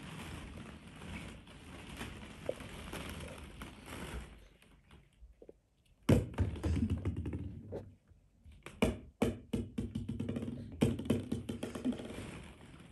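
Hollow plastic ball-pit balls rustling and clicking against one another as a toddler climbs in and rummages through them. The sound starts as a rustle, and about halfway through turns into a run of sharp clacks.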